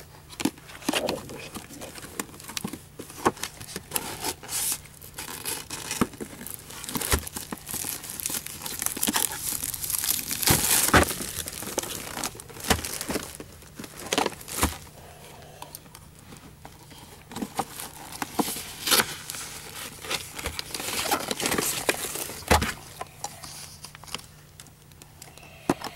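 Clear plastic packaging crinkling and tearing as it is pulled off a plastic toy carrying case, with irregular crackles and sharp clicks of the plastic being handled.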